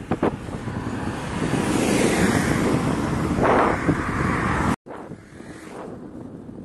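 Wind rushing over the microphone while cycling, with a passing van's tyres and engine swelling the noise to its loudest in the middle. It cuts off abruptly about five seconds in, and weaker wind noise follows.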